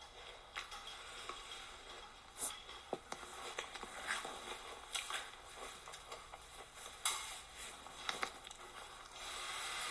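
Close-up chewing of crunchy Cap'n Crunch cereal: irregular crunches and clicks, the sharpest about two and a half seconds and seven seconds in.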